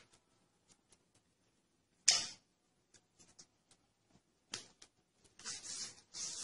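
Cats' paws and claws tapping and scuffing on a tiled floor around plastic feeders: scattered light clicks, a sharp knock about two seconds in, and a run of scuffling near the end.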